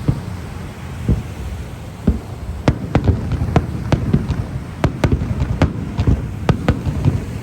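Japanese fireworks bursting: an irregular string of sharp bangs over a continuous low rumble, with a few duller thuds at first and more frequent, crisper cracks from about two and a half seconds in.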